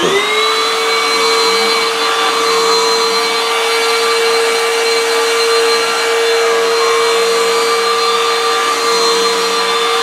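Black & Decker BDH3600SV 36-volt cordless stick vacuum switching on and spinning up, then running steadily with a high motor whine and rushing air as it is pushed across carpet.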